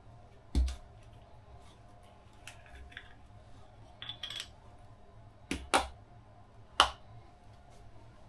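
Sharp clicks and knocks of kitchen items being handled out of view: a dull thump about half a second in, a few softer clicks, then three loud sharp clicks in close succession later on.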